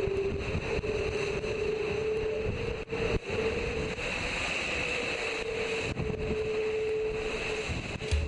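Onboard sound of an IMOCA 60 ocean-racing yacht sailing fast in heavy Roaring Forties weather: a constant rush of wind and water with a steady, slightly wavering hum from the boat that fades out near the end.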